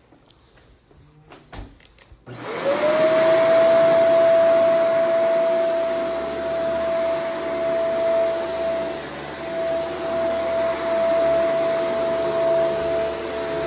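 Shark Vertex AZ2002 upright vacuum switched on about two seconds in: its motor whines up to speed in a fraction of a second, then runs with a steady high whine as it is pushed over carpet with clumps of dog hair. A few faint clicks of handling come before it starts.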